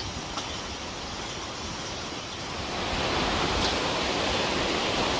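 Steady rushing noise, like flowing water or wind, that grows louder about three seconds in.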